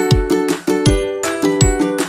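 Upbeat background music with a steady beat and plucked, ukulele-like strumming.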